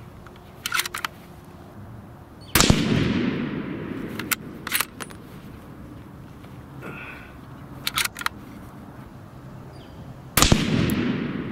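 Two shots from a Remington 700 ADL bolt-action rifle in .30-06, about eight seconds apart, each ringing out in a long fading echo. Short clusters of metallic clicks come before and between the shots as the bolt is worked.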